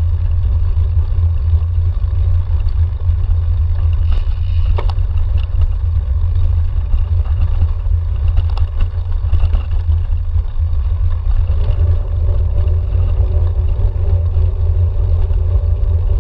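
Cyclocross bike riding fast over bumpy grass, heard from a handlebar-mounted camera: a steady low rumble of wind and vibration with scattered clicks and knocks from the bike. A faint steady hum comes in near the end.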